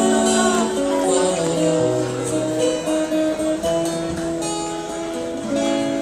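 Instrumental introduction on a plucked string instrument, a melody of single notes with chords underneath, before any singing.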